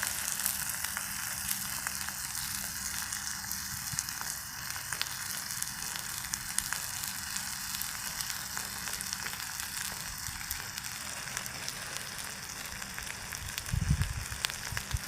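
Raw fish frying on a hot iron plate: a steady hissing sizzle with scattered sharp crackles and pops of spitting fat. A brief low thump comes near the end.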